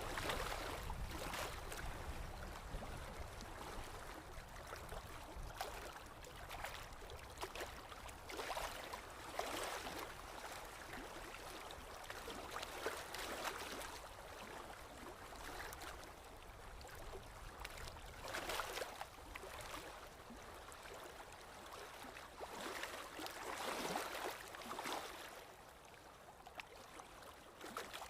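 Running water with a gurgle, a steady wash that swells and eases every few seconds.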